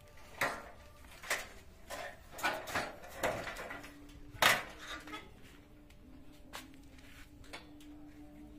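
A series of sharp knocks and light metallic clatters from handling the steel scaffolding and its fittings, the loudest about four and a half seconds in. A faint steady hum comes in about halfway through.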